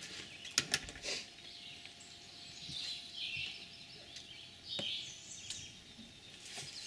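Small birds chirping in the surrounding forest, short high calls scattered through, with a few sharp clicks about half a second to a second in and one more near the end.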